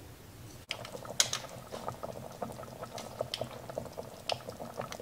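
Celery and chicken stew in tomato broth bubbling in a stainless-steel pot on the stove: a dense, irregular run of small pops and blips as it simmers. It is quieter for the first moment.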